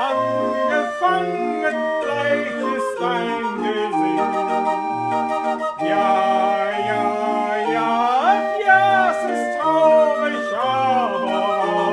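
Raffin R31/84 barrel organ, a hand-cranked 31-note pipe organ, playing a folk-song melody on its pipes over a bass note sounding about once a second.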